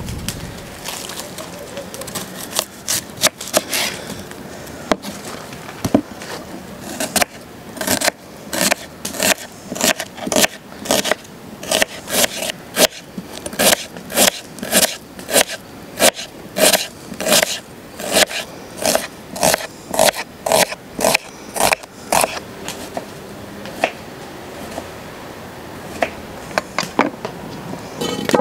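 A kitchen knife working a fresh onion: first scraping and cutting at it as it is peeled in the hand, then chopping it on a wooden cutting board in a steady run of knife strokes, about two a second, that stops a few seconds before the end.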